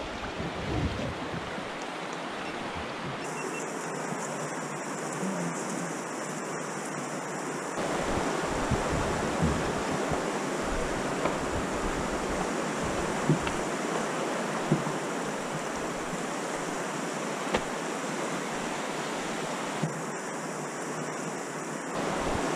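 Steady rushing of river water running over nearby rapids, with a few faint knocks in the second half.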